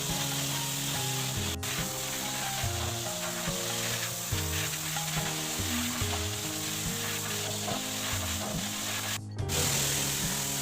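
High-pressure washer jet spraying water on the dismantled parts of a top-loading washing machine, a steady hiss that drops out briefly near the end. Background music plays along with it.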